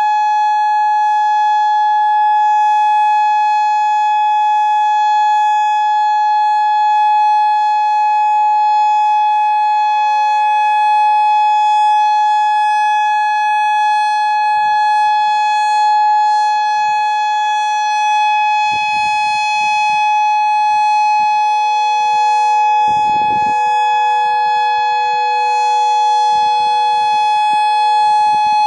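Federal Signal Modulator 6024 outdoor warning siren sounding its monthly test signal: one loud, steady pitch that does not rise or fall, with a stack of overtones above it. Low rumbles come and go in the second half.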